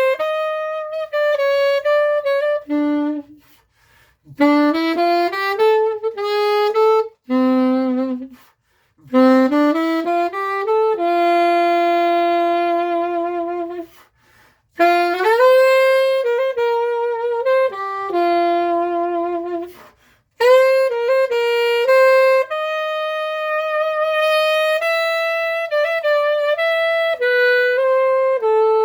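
Alto saxophone built by Adolphe Sax in 1876, played solo: a melody in phrases separated by short breath pauses, with long notes held with vibrato.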